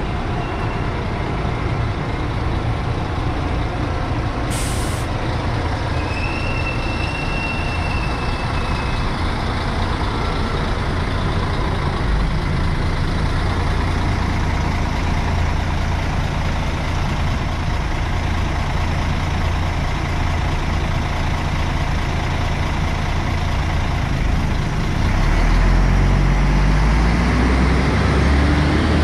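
Articulated city bus idling at the stop with a steady low engine rumble. About four seconds in there is a short, sharp hiss of compressed air, then a high tone for about three seconds. Near the end the engine revs up, rising in pitch, as the bus pulls away.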